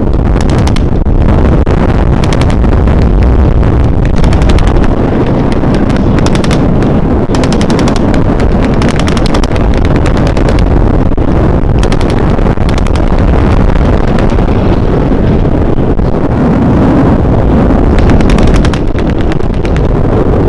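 Airshow pyrotechnics: a continuous barrage of rapid gunfire-like bangs and explosions simulating a WWII attack, with the engine of a low-passing propeller warbird underneath.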